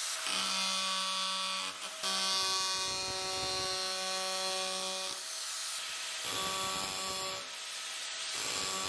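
Arbortech Power Chisel, a reciprocating chisel attachment driven by an angle grinder, running and paring wood away. Its steady motor hum comes in several stretches and changes briefly between them as the blade cuts.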